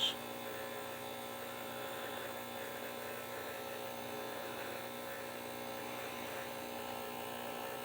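A steady electrical hum with a faint buzz, holding an even level throughout.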